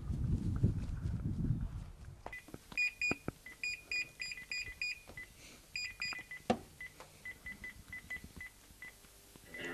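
Electronic beeps standing in for a robot toaster's speech: quick runs of short, high beeps in irregular groups, with a few sharp clicks among them. A low rumble, like wind on the microphone, fills the first two seconds before the beeps start.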